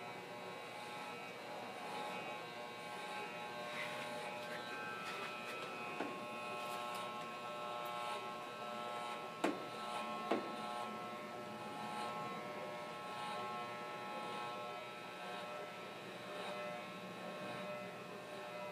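Electric hair clippers running with a steady buzz while cutting hair. Two sharp clicks about a second apart come near the middle.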